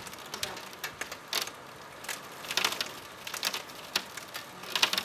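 Storm rain beating against a window, a steady hiss with many irregular sharp taps of drops striking the glass and sill, heavier in a few flurries.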